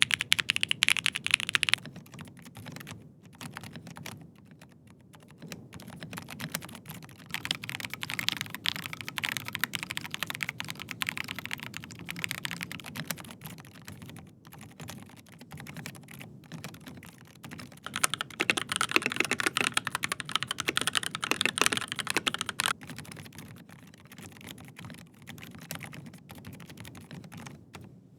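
Fast typing on mechanical keyboards, one after another. It starts on switches from Asus's ROG NX line, then moves to Gateron G Pro 3.0 Red linear switches. The clacking comes in bursts that rise and fall in loudness, loudest at the very start and again from about 18 to 23 seconds in.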